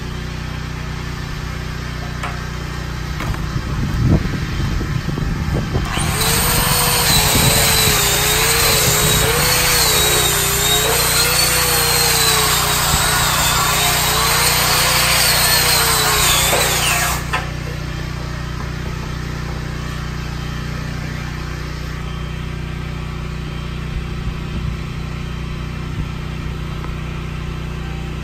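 Angle grinder run against the steel pipe of a barbecue pit, starting about six seconds in and lasting about eleven seconds, its whine wavering in pitch as it is pressed on and eased off, then stopping suddenly. A steady low machine hum sits underneath, with a few dull knocks shortly before the grinding starts.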